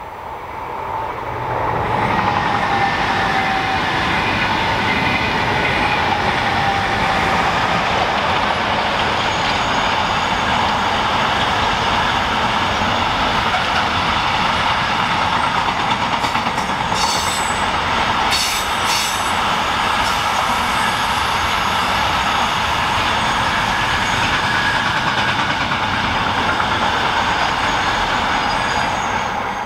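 Long intermodal container freight train, hauled by an electric locomotive, passing at speed: a steady loud rumble of wheels on rail that builds over the first two seconds. A whine slowly falls in pitch over the first several seconds, and a few sharp clicks come around 17 to 19 seconds in.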